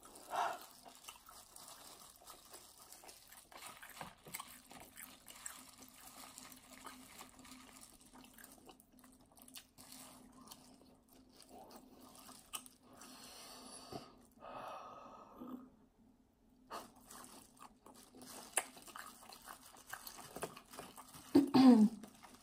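Close-up eating sounds of a seafood boil being chewed: small wet mouth clicks and smacks with an occasional crunch, over a faint steady hum. Near the end there is a short falling tone, the loudest moment.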